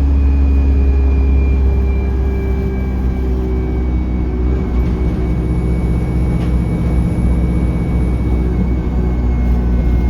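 Engine and drivetrain of bus 36749 running steadily, heard on board as a deep rumble, with a thin high whine that slowly falls in pitch.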